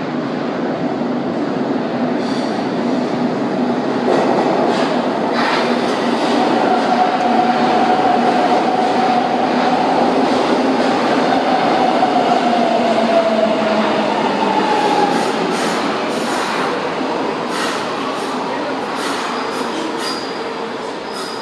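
São Paulo Metro train pulling into an underground station. The running rumble of wheels on rail grows loud as the cars pass close, with a whine that falls in pitch as the train slows. Clicks and a high wheel squeal come near the end as it brakes.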